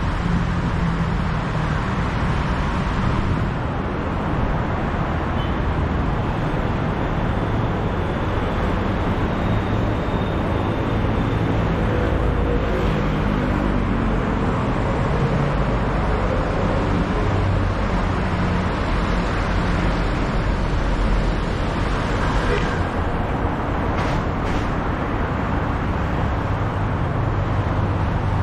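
Steady road traffic: vehicle engines running and tyres on the road, with one engine's note rising around the middle as it speeds up.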